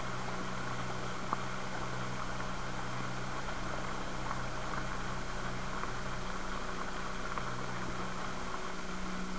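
Small aluminium boat's outboard motor running steadily under way, a constant low drone over the rush of water and spray along the hull. One brief tap about a second in.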